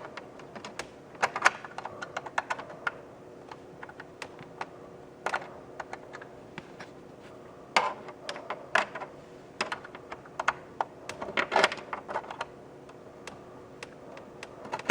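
Irregular plastic clicks, taps and rattles of cables and connectors being handled, with a USB plug being fitted into a port on the back of a television. The clicks come in scattered clusters.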